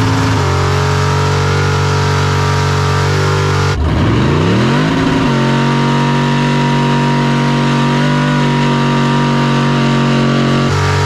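High-powered car engine revved up and held at high rpm, the way it is held through a burnout. The pitch stays steady, drops briefly about four seconds in, climbs again and holds, then changes near the end.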